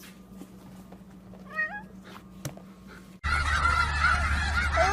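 A short, wavering animal call, cat-like, in a quiet room. Then a sudden switch to a loud steady rumble, with honking fowl calls starting near the end.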